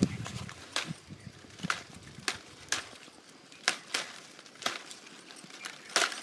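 Field recording of a tea plucker snapping tea leaves off the bushes by hand: a quick run of sharp snaps, about one or two a second.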